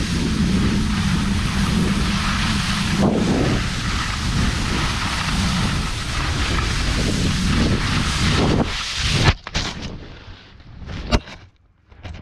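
Skis sliding and scraping fast over snow with wind rushing across the microphone. About nine seconds in, the skier falls: a sudden hit, the rush cuts off, and a few sharp knocks and bumps follow as he lands in the snow.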